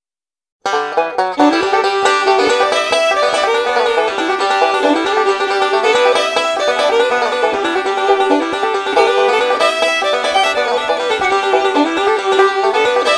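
Dead silence, then under a second in background music starts abruptly: a lively plucked-string tune with a quick repeating melody.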